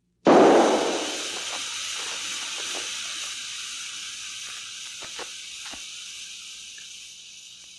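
Tire blowout: a sudden bang, then air hissing out of the tire and slowly dying away, with a few faint knocks along the way.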